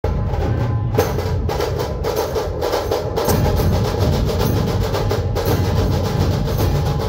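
A dhol-tasha ensemble playing a fast, continuous rhythm. Large barrel dhol drums are beaten, with sharp tasha strokes and brass hand cymbals clashing over them.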